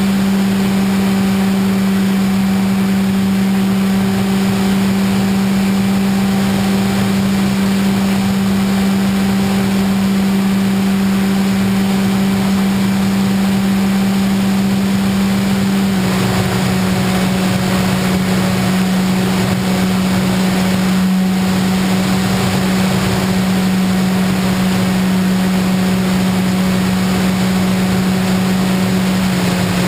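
Model airplane's motor and propeller running at steady throttle in flight: a constant hum with a rush of wind noise. Its pitch and tone shift slightly about halfway through.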